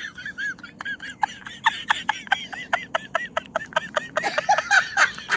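A rapid series of short, high chirps, several a second, typical of a small bird or birds calling.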